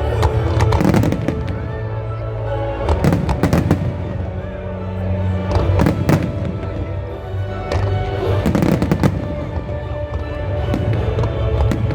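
Fireworks bursting and crackling in four clusters, about every two to three seconds, over loud music playing.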